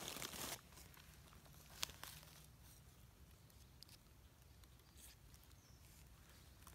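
Near silence: a faint outdoor background with a short rustle at the start and a few soft, isolated clicks.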